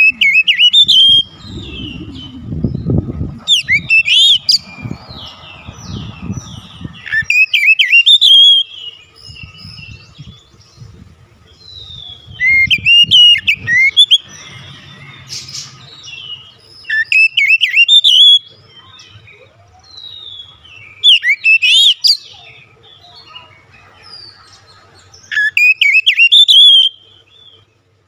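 Oriental magpie-robin singing: loud bursts of varied, fast whistled phrases and trills roughly every four seconds, with softer warbled notes in between.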